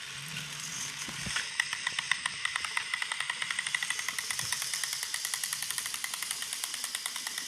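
Battery-powered toy train running on plastic track, its small motor whirring with rapid, even clicking of about six a second.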